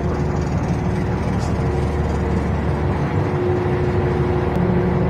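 A ferry's diesel engine running, a steady low drone with a faint constant hum above it.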